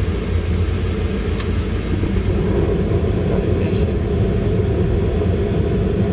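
Ducane gas furnace running through its ignition cycle: a steady low rumble, with one faint click about a second and a half in.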